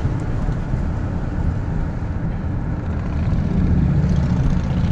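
Steady road and engine noise inside a moving car's cabin, a little louder about three and a half seconds in.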